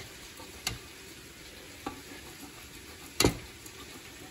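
Parmesan being grated by hand on a stainless steel box grater over a bowl of beaten eggs: a soft, steady rasp with a few sharp knocks of the grater, the loudest about three seconds in.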